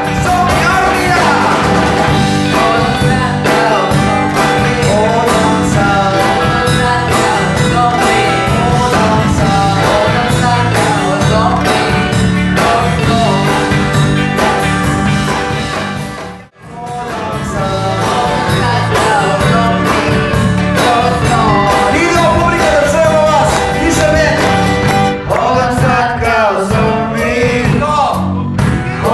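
Live band playing a rock song with singers' voices on microphones over acoustic guitar and a steady low beat. The sound cuts out for an instant about halfway through, then the song carries on.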